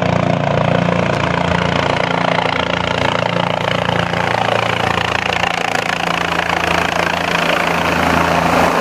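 Engine running steadily and loudly: a low steady hum under a dense rushing noise, without a break.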